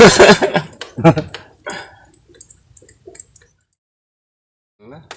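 A man's voice speaks briefly, followed by a few faint small clicks and a second or so of dead silence before quiet talk starts again near the end.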